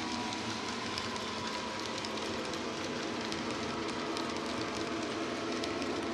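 Model railway container wagons rolling past on the track: a steady rolling rumble with a stream of small clicks from the wheels.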